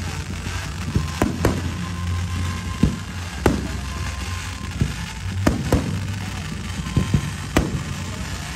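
Aerial firework shells bursting overhead: about nine sharp bangs at irregular intervals, several in quick pairs, over a steady low hum.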